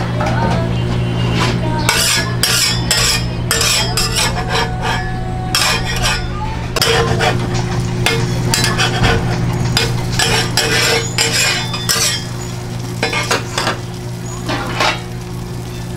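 Metal spatula scraping and clanking on a stainless-steel flat-top griddle while burger patties fry. A steady low hum runs underneath, and the scraping thins out in the last few seconds.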